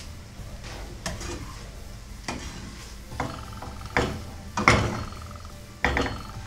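Spatula stirring and scraping chopped parotta and chicken in a non-stick frying pan: several sharp knocks and scrapes against the pan, the loudest nearly five seconds in, over a steady low hum.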